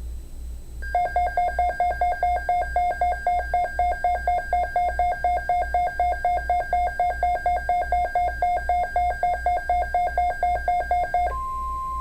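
Emergency Alert System alert tones: from about a second in, a loud electronic tone pattern pulses about four times a second, then near the end it switches to a single steady beep.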